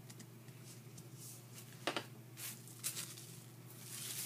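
Plastic applicator bottle being handled and its nozzle twisted on: faint scattered rustles and scrapes, one sharper about two seconds in, over a steady low hum.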